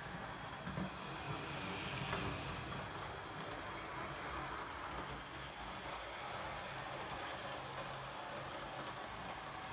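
Model trains running on the layout track: the steady whir of small electric motors with wheels rolling on the rails.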